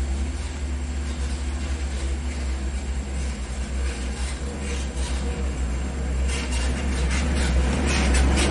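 Heavy truck labouring up a steep potholed climb: a deep steady engine rumble, with rattling and road noise building from about six seconds in.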